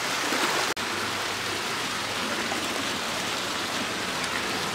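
Steady splashing of water from the pool's small fountain jets. The sound drops out for an instant under a second in.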